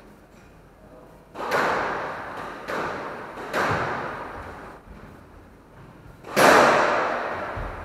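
Squash ball struck hard four times, each sharp crack followed by a ringing echo that dies away over about a second in the enclosed court. The fourth strike, about six seconds in, is the loudest.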